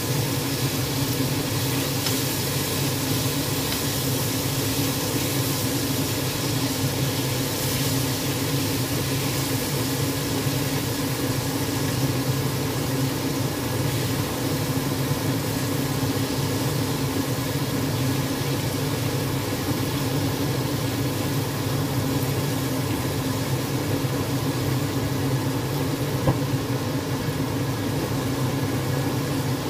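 Coated chicken pieces sizzling steadily as they fry in oil in a wok, with a steady low mechanical hum underneath.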